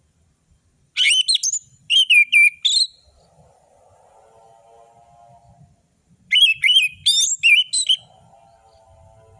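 Orange-headed thrush singing: two bursts of rapid, clear whistled notes, each about two seconds long and a few seconds apart. A fainter, lower warbling sound fills the pauses between the bursts.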